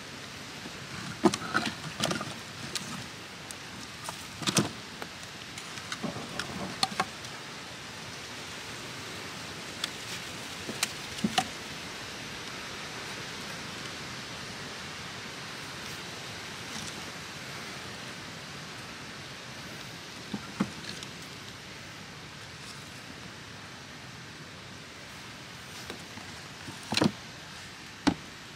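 Steady wind noise on the microphone, with scattered wooden knocks and clunks as split firewood pieces are set down and stacked crosswise in a steel fire ring over a small fire.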